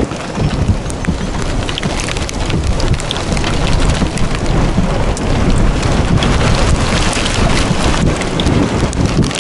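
Rain falling on and around the microphone, many sharp ticks over a steady rush, with gusty storm wind buffeting the microphone in an uneven low rumble.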